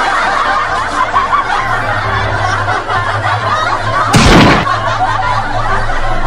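Continuous laughter, many quick giggles layered together, with a loud splash about four seconds in as a person plunges into the water.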